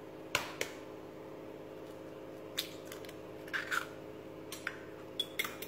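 A brown egg being cracked into a white bowl: one sharp crack about a third of a second in, then a few lighter clicks and taps of the shell. A steady low hum runs underneath.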